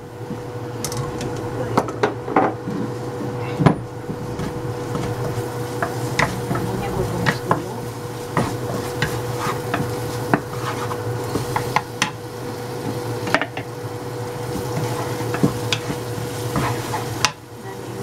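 Cooking sounds: frequent clinks, taps and scrapes of utensils against jars and pans over a steady hum.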